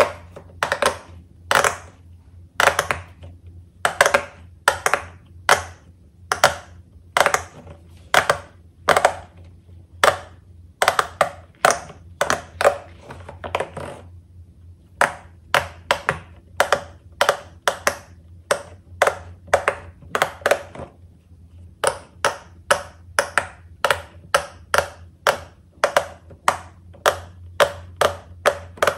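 Bubbles of a large silicone pop-it fidget board being pressed down one after another, each giving a sharp pop, at about two a second with a couple of brief pauses.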